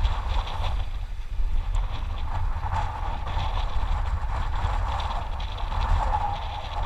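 Wind buffeting the microphone of a helmet-mounted camera, heard as a steady low rumble, with a wavering hiss above it.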